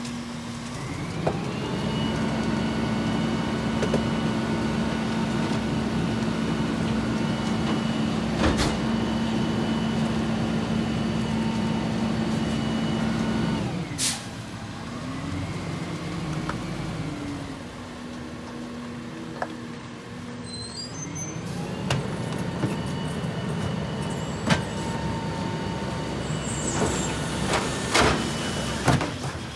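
New Way rear loader garbage truck working its hydraulic packer. The engine and hydraulic pump step up to a steady whine that holds for about twelve seconds, then drop back and rise again for a second cycle. Several sharp metal clanks from the hopper and carts cut through.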